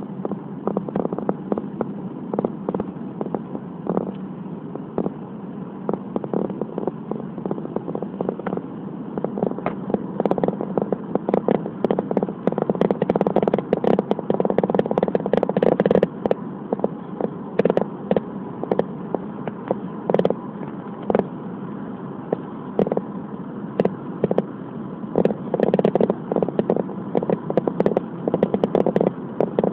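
Car driving along an expressway: steady road and engine noise with frequent, irregular clicks and knocks that grow denser and louder from about ten seconds in.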